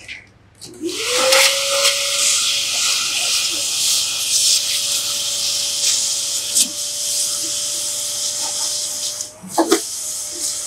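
Handheld electric blower running over a mink coat's fur: a steady rush of air with a motor whine that rises as it spins up about a second in, then holds steady. A few clicks near the end.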